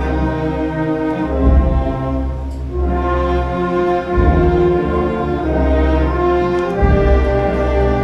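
Orchestral music with strings and brass playing long held chords that change every second or two.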